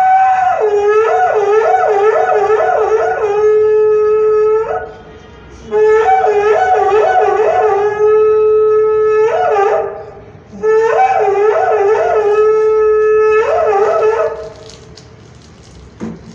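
A handmade paper conch shell (shankha) blown in three long blasts. Each blast opens with a fast wavering, trilling pitch and then settles into a steady held note.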